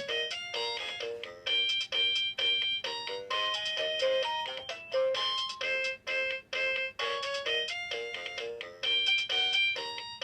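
Anpanman children's toy electronic keyboard playing one of its built-in demo tunes: a bright, beepy synthesized melody of short notes with simple accompaniment.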